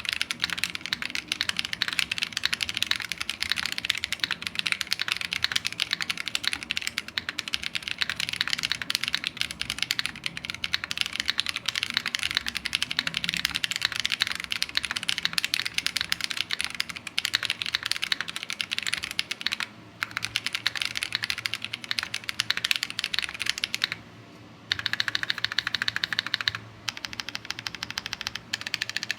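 Fast, continuous typing on a KBD67 Lite mechanical keyboard with stock AEBoard Naevy switches, an aluminium case with a brass weight, and CRP keycaps. The keystrokes come in a rapid, even stream, broken by a brief pause about 20 seconds in and a longer pause of about a second near 24 seconds.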